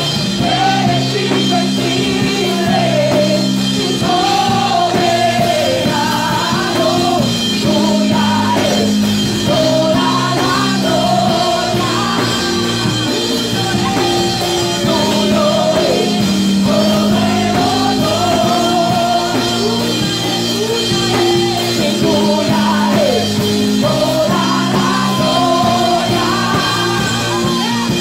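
Loud live gospel praise music: a voice singing over long held keyboard chords, with drums.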